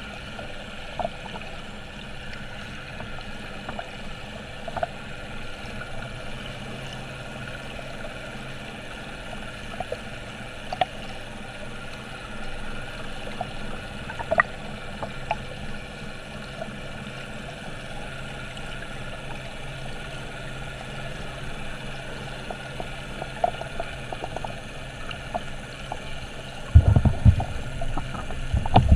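Swimming-pool water heard through an underwater camera: a steady muffled hiss with a faint hum, scattered small clicks and ticks, and a louder low rushing of water over the last two seconds or so.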